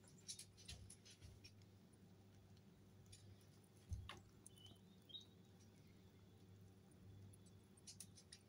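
Faint nibbling and chewing of Mini Lop rabbits eating banana: small scattered clicks in short clusters, with a soft thump about four seconds in.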